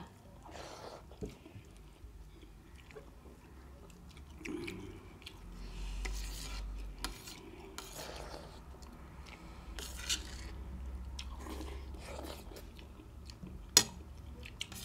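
Eating at the table: a spoon clinking and scraping on a steel plate, with chewing of milk-soaked rice. The loudest event is a single sharp clink near the end.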